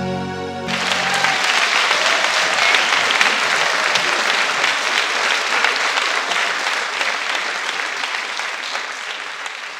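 The song's last held chord ends just under a second in, and audience applause takes over. The clapping holds steady, then fades out over the last few seconds.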